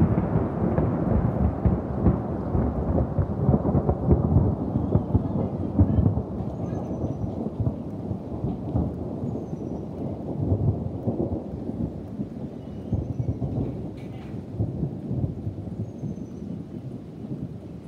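Thunder from a lightning strike on the house, rumbling deep and heavy and slowly dying away.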